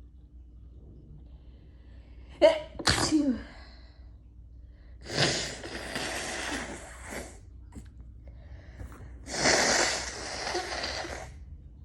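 A person sneezing hard: one sharp, voiced sneeze about two and a half seconds in, then two long breathy rushes of air, each about two seconds.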